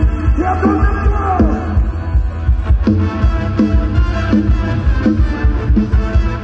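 Loud dance music with heavy bass and a steady beat, played through the stacked speakers of a small Thai rot hae sound-system truck.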